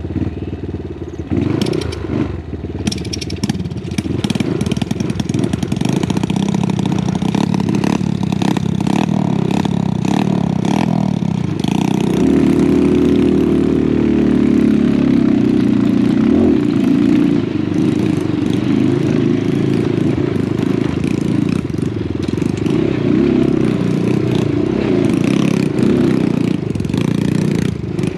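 Honda Wave 125 underbone motorcycle's single-cylinder four-stroke engine being ridden off-road, its revs rising and falling under load, with knocks and rattles in the first few seconds. The engine gets louder about twelve seconds in.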